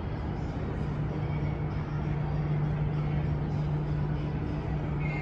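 Ship's engines droning steadily: a constant low hum over a wash of noise.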